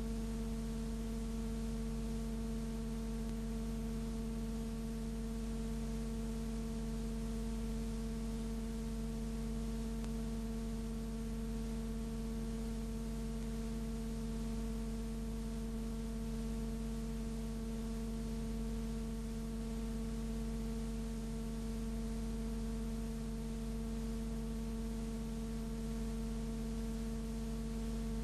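Steady electrical hum with a ladder of overtones over a faint even hiss, unchanging throughout.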